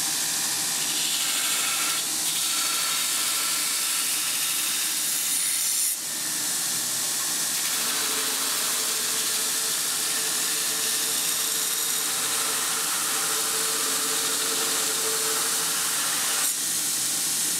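Belt grinder running at full speed with a worn 36-grit belt, the steel blade of a forged chef's knife pressed against it: a steady grinding hiss whose tone shifts as the blade is worked, with a brief dip about six seconds in.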